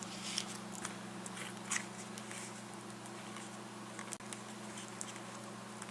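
Faint scattered clicks and crackles of adhesive sponge strip being handled and pressed onto the edge of a GPS touchscreen, over a low steady hum.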